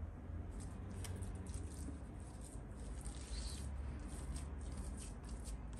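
Silicone spatula working an egg yolk into thick, sticky cooked-flour dough in a glass bowl: faint, irregular squishing and soft scraping strokes.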